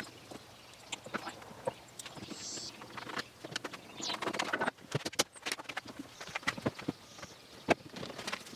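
Irregular light knocks and clicks of wood and hardware being handled on a workbench, with a short scraping stretch about halfway through.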